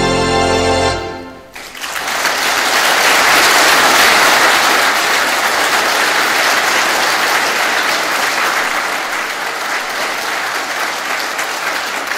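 Two-manual, nine-rank Wurlitzer theatre organ holding a closing chord, which cuts off about a second and a half in. Audience applause follows, swelling and then slowly dying down.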